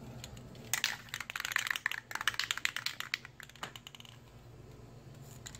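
Aerosol spray-paint can being shaken, its mixing ball rattling in a quick run of clicks that starts just under a second in and stops about four seconds in.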